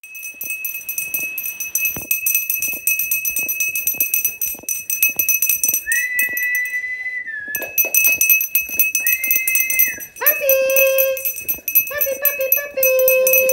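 Pug and French bulldog puppies whining in a plastic crate, over a patter of small clicks and scratches. There are high drawn-out whines about six and nine seconds in, then lower yelping cries from about ten seconds on. A steady high-pitched ringing runs underneath.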